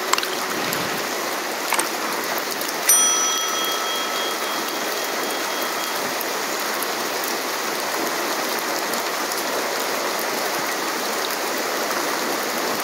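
Steady rain falling on roofs and a yard, with a few sharp drip-like clicks. About three seconds in, a click is followed by a high ringing tone that lasts about three seconds.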